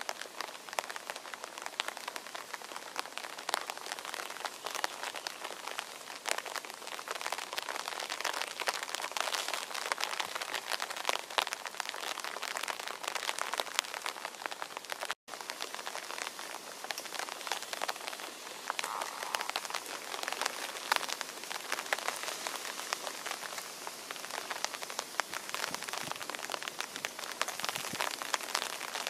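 Steady rain falling, a dense patter of drops hitting hard ground and leaves. It cuts out for an instant about halfway through.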